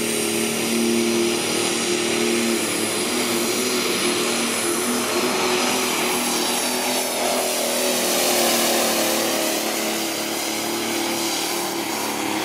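Pulling tractor's engine running hard and steadily under full load during a hook, with a high whine above it.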